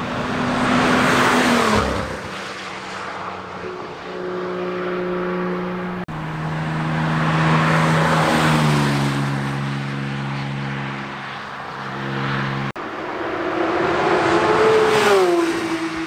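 Cars passing at speed on a race track, one after another: three loud pass-bys, each engine note peaking and dropping in pitch as the car goes by.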